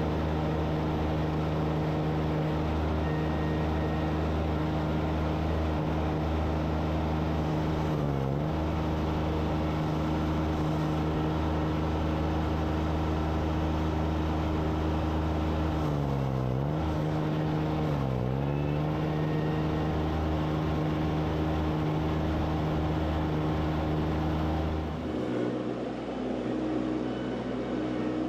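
Mini skid steer's engine running steadily at high speed, its pitch dipping sharply and recovering three times as it is briefly loaded down. Near the end the note drops and changes.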